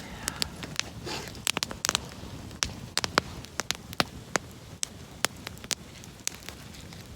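Wood campfire crackling, with sharp irregular pops and snaps over a low steady hiss.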